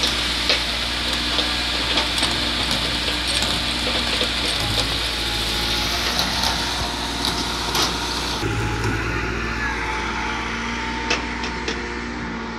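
Diesel engine of a small Caterpillar-Mitsubishi MS010 crawler excavator running steadily as it digs, with idling tractors alongside and scattered sharp clanks and knocks. The engine note shifts about two-thirds in.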